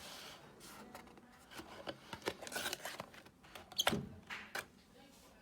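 Cardboard perfume box and its packaging being handled: scattered light clicks and taps with soft rustling, the loudest tap a little under four seconds in.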